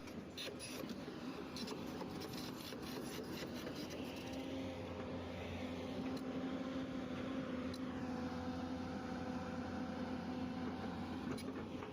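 Faint, steady hum of a heavy machine's engine running, with light rubbing and clicking of the phone being handled in the first second or so.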